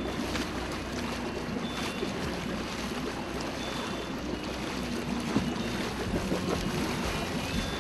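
A boat's engine running steadily, with wind noise on the microphone and the wash of water around the hull.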